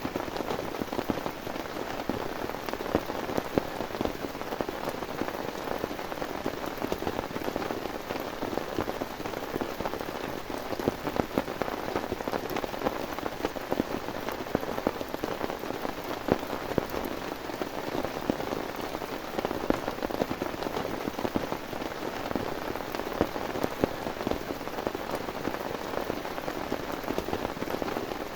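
Heavy rain falling steadily, a dense, even patter of countless drops striking a surface, with no let-up.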